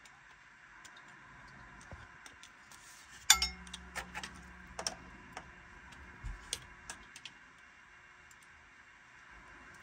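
Scattered light clicks and knocks of tools and parts being handled in a boat's engine bay, with one sharp metallic clink that rings briefly about three seconds in, followed by a low hum for about three seconds.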